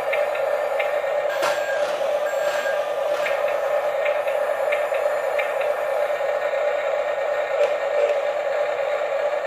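Small electric motors and plastic gearboxes of a toy remote-control construction vehicle whining steadily, with scattered light clicks.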